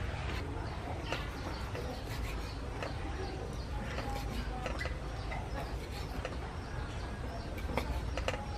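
Large kitchen knife slicing cooked pig offal on a round wooden chopping block, the blade knocking on the wood at irregular intervals. Birds calling faintly in the background.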